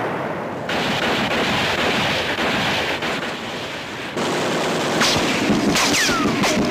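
Battle sound effects of dense gunfire and blasts, changing abruptly under a second in and again about four seconds in. Sharp cracks and a few falling whines follow near the end.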